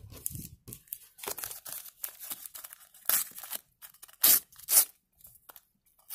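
A sticker packet wrapper is torn open and the stickers are rustled out by hand: several short rips and crinkles. The loudest are about three and four-and-a-half seconds in.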